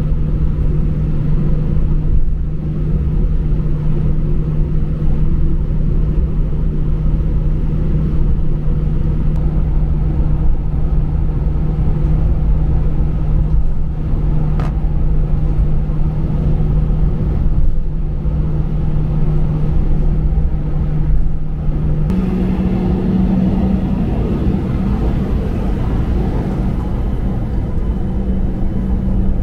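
Steady low rumble inside the cabin of an Airbus A320-214 on the ground before takeoff, its CFM56 engines running, with a steady hum that steps up slightly in pitch about 22 seconds in.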